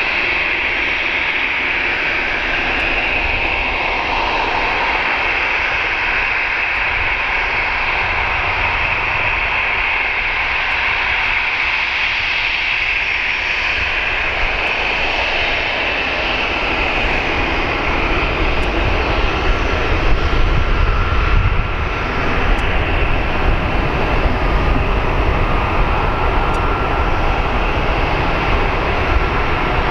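Airbus A319's twin IAE V2500 turbofan engines at taxi power as the jet taxis past: a steady jet whine and rush. The low rumble grows louder about two-thirds of the way through as the aircraft draws near.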